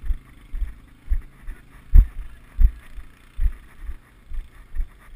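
Walking footsteps on a dirt forest track, heard as regular low thuds through a body-worn action camera, about one and a half steps a second, the heaviest about two seconds in.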